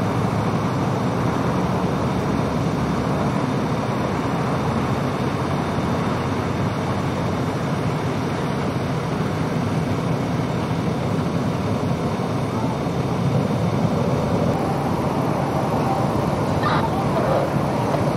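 Steady freeway traffic noise: a continuous rumble of passing vehicles, with a flatbed semi-truck going by near the end.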